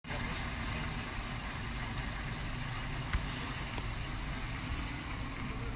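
Semi-trailer truck's diesel engine idling steadily, with a single short click about three seconds in.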